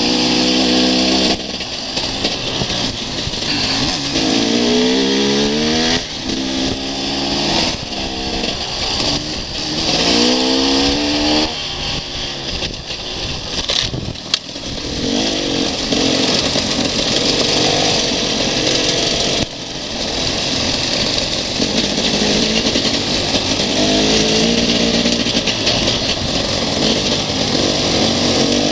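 Enduro motorcycle engine under way on a dirt track, its pitch rising again and again as it revs up and eases off, with wind rushing over the microphone. A single sharp knock about halfway through.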